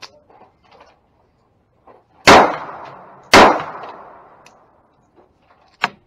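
Two gunshots about a second apart, each followed by a long ringing tail, then a single sharp click near the end.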